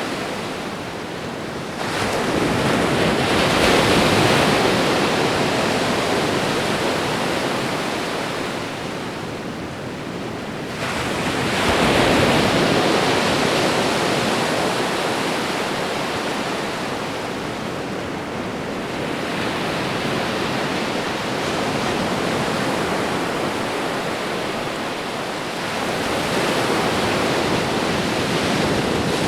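Ocean waves breaking and washing on a shore, a steady rush that swells and eases in slow surges, with peaks about 2, 12 and 26 seconds in.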